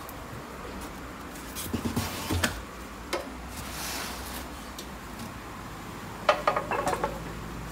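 Handling noises from a benchtop bandsaw being lifted out of its cardboard box and polystyrene packing: scattered knocks and scrapes, then a short cluster of rattling clicks near the end.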